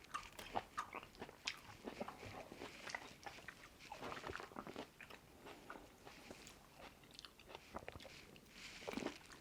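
A person chewing and biting Shine Muscat grapes, with irregular, faint crunches and wet mouth clicks.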